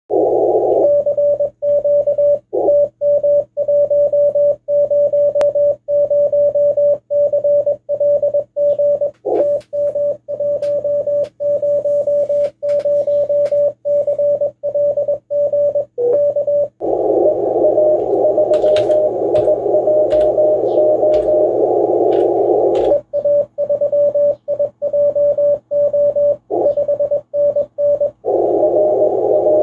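Morse code (CW) from an amateur radio transceiver: a single steady tone keyed on and off in quick dots and dashes. From about 17 to 23 seconds in, and again near the end, the tone gives way to receiver hiss heard through a narrow CW filter, with a weaker keyed signal inside it.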